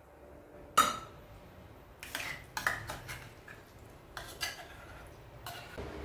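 Wooden spoon scraping and knocking drained tuna out of a tin can into a stainless steel mixing bowl: a sharp clink about a second in, then several lighter knocks and scrapes.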